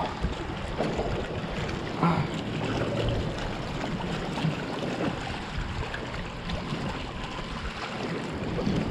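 Choppy water lapping against a fishing boat's hull: a steady wash with a couple of faint knocks.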